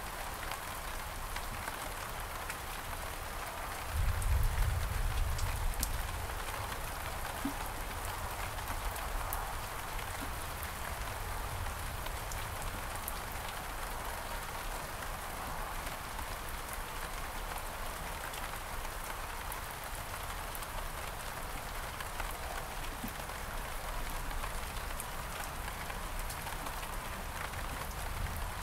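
Steady rain falling on garden surfaces, with scattered drips ticking. About four seconds in, a deep low rumble swells for a couple of seconds.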